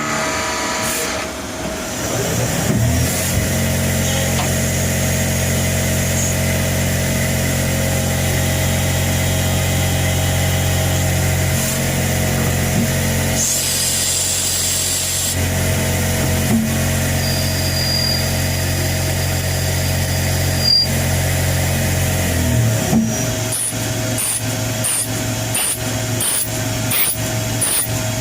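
CNC lathe running with a steady hum while machining a G1/2 nut, with a hiss for about two seconds near the middle. In the last few seconds it turns to a rapid series of short repeated strokes, about two a second.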